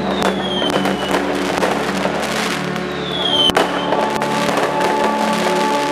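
Fireworks going off: whistles that fall in pitch, a sharp bang about three and a half seconds in, and dense crackling, over steady background music.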